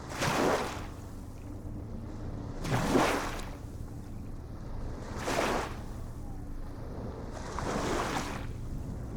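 Ocean waves washing in, each a hiss of surf that swells and fades, four times about two and a half seconds apart, over a steady low rumble.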